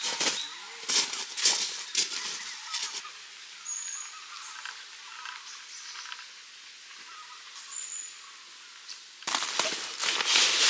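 Footsteps crunching on loose gravel for the first few seconds, then a quieter stretch with two short high bird chirps. Near the end comes close rustling and scraping as gear and a fabric bag are handled on the gravel.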